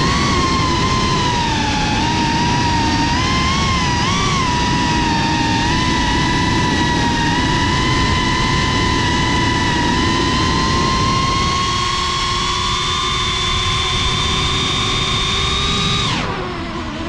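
FPV racing quadcopter's brushless motors and propellers whining steadily, heard from the onboard GoPro, with rough wind and prop-wash noise underneath. The pitch wavers slightly with the throttle, then falls off sharply near the end as the throttle is cut.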